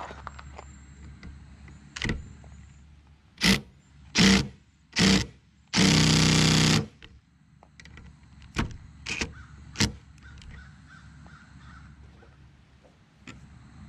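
DeWalt cordless impact driver with a 12 mm socket hammering on a seized rear wiper arm nut: a few short trigger bursts, a longer burst of about a second, then three more short bursts. The nut is rusted on and does not come loose.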